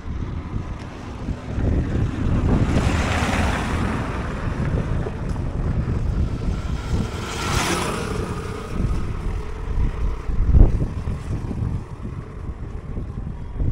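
Wind rumbling on the microphone, with two louder rushing swells, one about a quarter of the way in and one just past the middle.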